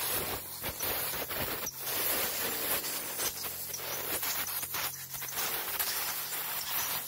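Compressed air hissing from a blow-gun nozzle as it blows out the ports and bores of a cleaned Lucas diesel injection pump housing, with a few brief breaks as the nozzle moves. Faint sustained tones sit underneath the hiss.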